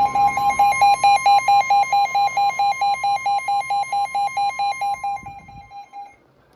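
Weather radio alert tones: the steady NOAA Weather Radio warning alarm tone, with a rapid beeping alarm of about six beeps a second over it, announcing a new warning. The steady tone cuts off a little before the beeping, which stops near the end.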